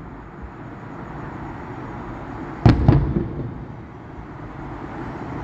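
Distant fireworks shells bursting: two sharp booms a quarter-second apart about two-thirds of the way through, each trailing off in a rumbling echo.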